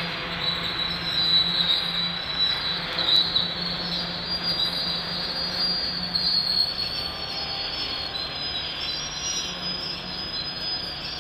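Loaded covered hopper cars of a freight grain train rolling past, their steel wheels squealing in a high, wavering screech over steady rolling noise.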